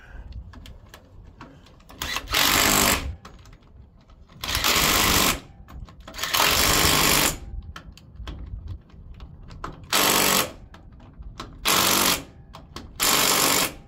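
Cordless impact driver running in the bolts that hold the panel to a garden tractor's transmission, in six short bursts of about a second each.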